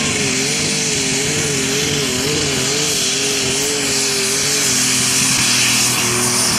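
Heavy super stock pulling tractor's engine running flat out under load while pulling the sled, over a loud rushing hiss. Its note wavers up and down about twice a second, then steadies near the end.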